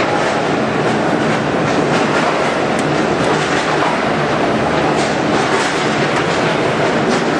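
ULMA vertical form-fill-seal packaging machine running: a steady, dense mechanical noise with faint clicks scattered through it.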